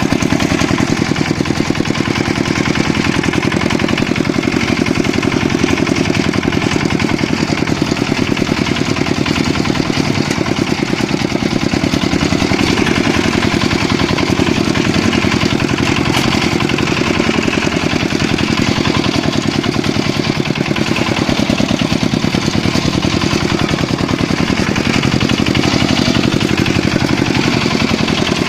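Walk-behind tractor (motoblock) engine running steadily at a constant speed, with a fast, even chugging.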